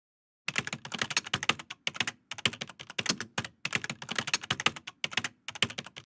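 Computer keyboard typing sound effect: rapid key clicks in quick runs with short pauses, as text is typed out on screen. It starts about half a second in and stops just before the end.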